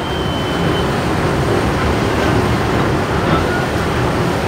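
Boat engines running steadily with water churning, heard from on board a river ferry as a Chao Phraya express boat passes close alongside.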